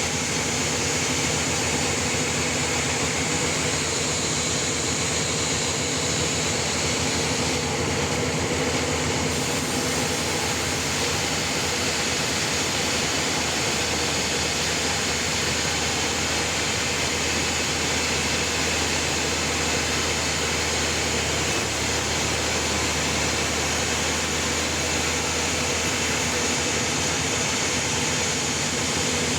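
Sawmill running steadily as it saws a trembesi (rain tree) log: a constant mechanical din with a steady hum and a high whine.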